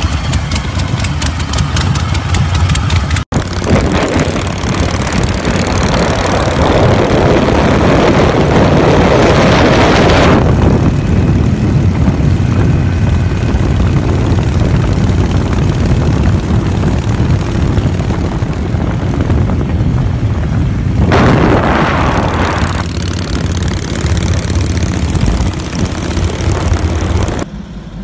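Vintage Harley-Davidson chopper engines running: first an even, rapid beat of exhaust pulses, then, after a brief cutout about three seconds in, a bike riding at speed with wind rushing over the microphone, swelling louder twice along the way.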